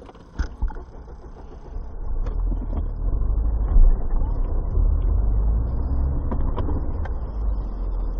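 Low rumble of a Mercedes-Benz car's engine and tyres heard from inside the cabin while driving on a slushy road. It gets louder about two seconds in, with a few faint clicks and knocks.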